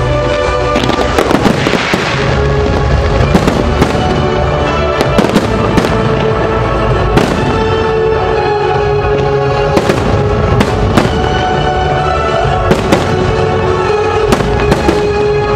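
Fireworks bursting in many sharp, irregular bangs, some close together, over loud music.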